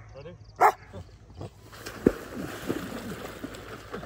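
A Belgian Malinois barks once, loud and short, near the start. From about two seconds in, water splashes and sloshes as a man wades into a shallow pond.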